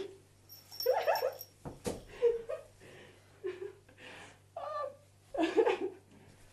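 A dog whining and yipping in about five short, pitch-bending calls, with a single sharp knock about two seconds in.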